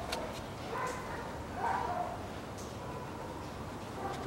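A dog whimpering: three short, high whines spread over a few seconds, with steady background noise and a light click at the start.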